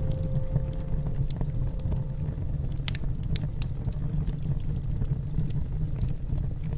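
Wood fire crackling: scattered sharp pops and snaps over a steady low rumble.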